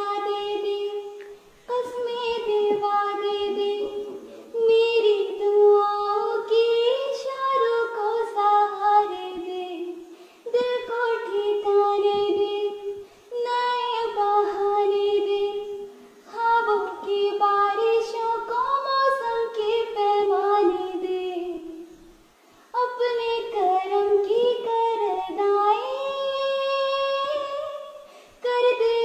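A young girl singing solo and unaccompanied, a melodic song in phrases a few seconds long with short pauses for breath between them.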